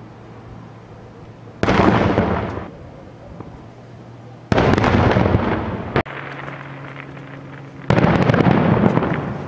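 Aerial firework shells bursting: three loud booms about three seconds apart, each trailing off over a second or so, with a single sharp crack between the second and third.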